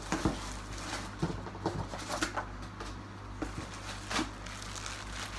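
Clothing and plastic packaging rustling and crinkling as garments are handled, a string of short rustles and crackles, over the steady low hum of a washing machine running.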